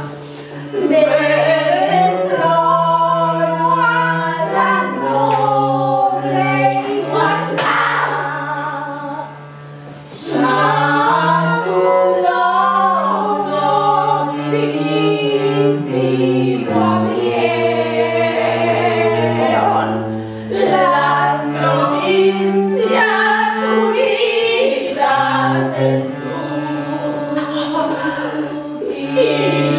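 A woman singing over a cello, with the cello holding long, low bowed notes beneath the melody. The music briefly drops quieter about nine seconds in.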